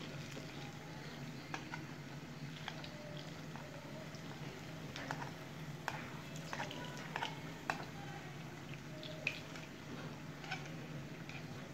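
Urad dal vadai (lentil fritters) frying in hot oil in a pan: a steady bubbling with scattered sharp pops and crackles, over a low steady hum.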